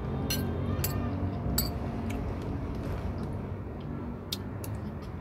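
Metal spoon clinking and scraping against a ceramic bowl while eating, several light strikes with a short ring, bunched in the first two seconds and again near the end. A steady low hum runs underneath.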